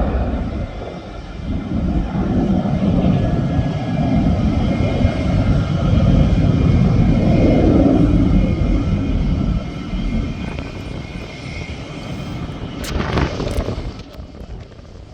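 Jet airliner engines rumbling as an aircraft passes, with a faint high whine over the roar. It is loudest about halfway through and fades toward the end.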